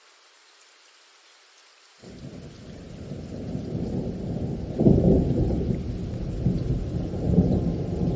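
Faint rain hiss, then about two seconds in a deep rumble of thunder comes in, swells to its loudest roll around five seconds and keeps rumbling over the rain.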